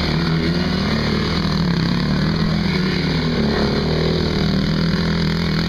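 Quad bike (ATV) engines running at a steady pitch under way, a continuous buzz.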